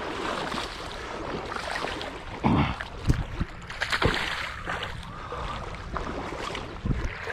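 Creek water running with wind on the microphone, and a few sudden splashes about two and a half, three, four and seven seconds in.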